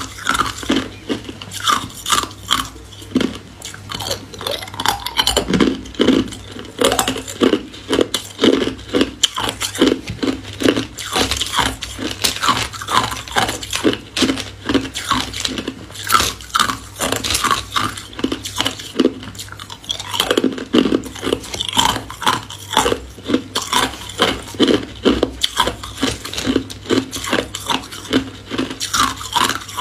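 Ice cubes being bitten and crunched between the teeth: a steady run of sharp cracks and crunches, two or three a second.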